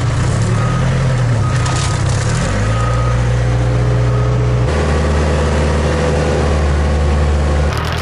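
Case 580K backhoe loader's diesel engine running while the machine is driven, its engine note shifting about two and a half seconds in and again near five seconds.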